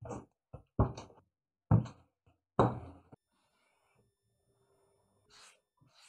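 A ball of clay thumped down on a wooden worktable as it is wedged by hand: about five irregular thumps in the first three seconds.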